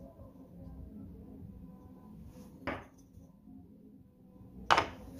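Two short wooden knocks, the second louder, as plywood pieces are set down and knocked against a plywood drill press table and fence.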